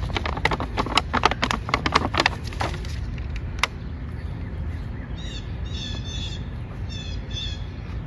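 A run of crackling clicks and rustles for the first three seconds, then a small songbird chirping in short repeated phrases of quick falling notes from about five seconds in.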